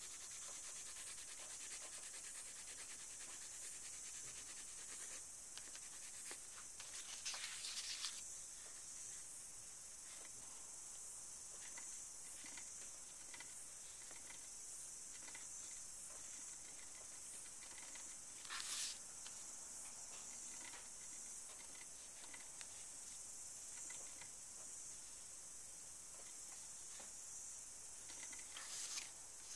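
White chalk pastel scratching over black paper: a faint, steady high hiss with a few louder strokes about seven, nineteen and twenty-nine seconds in.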